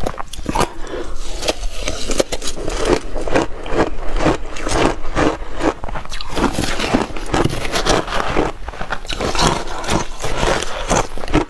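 Metal spoon scraping and scooping through crushed ice in a plastic bowl, mixed with the crunching of ice being chewed, picked up close on clip-on microphones as a dense run of crisp, irregular crackles.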